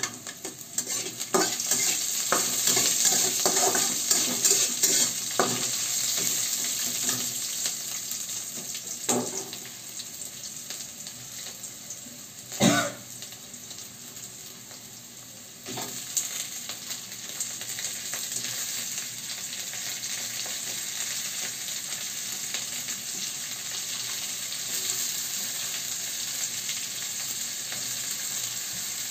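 Sliced onion sizzling in hot oil in an aluminium kadai, with a metal spatula scraping and clicking against the pan while stirring in the first several seconds. A single sharp knock comes about 13 seconds in, and shortly after, sliced bitter gourd goes into the pan and the sizzle becomes louder and steady.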